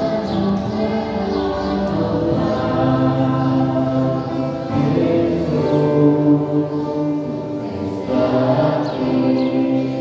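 A church choir singing a hymn, several voices holding long notes that change about every second.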